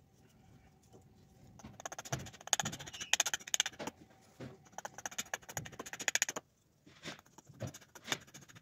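Small hatchet paring a wooden spoon blank, a quick series of crackling scraping cuts in short runs, with a brief pause about six and a half seconds in.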